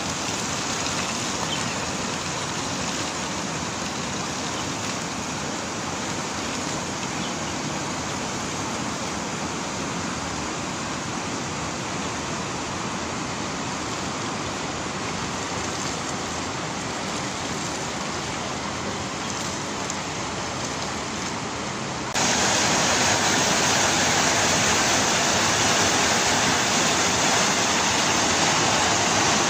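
River water rushing steadily over shallow rapids. About three-quarters of the way through it cuts suddenly to a louder, brighter rush of whitewater.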